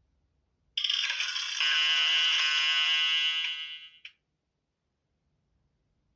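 A stock Nokia E72 ringtone or alert tone, one short electronic phrase of about three seconds: a quick flurry of notes, then a held bright chord that fades out.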